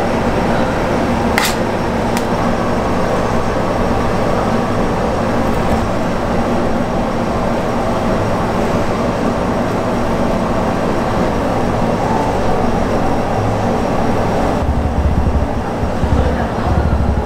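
Steady hum and hiss of kitchen machinery, with two light clicks about a second and a half and two seconds in, and a few soft low thumps near the end.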